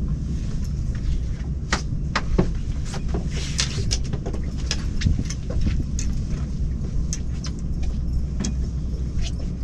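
Boat engine running steadily with a low rumble, with many short clicks and knocks on top.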